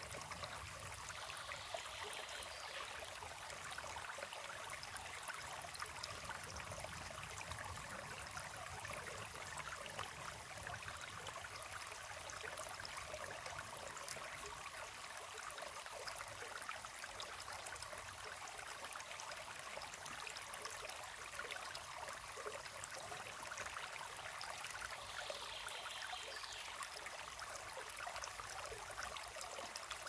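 Small brook trickling over a mossy step in a little cascade and splashing onto stones in a shallow pool, a steady babble of running water.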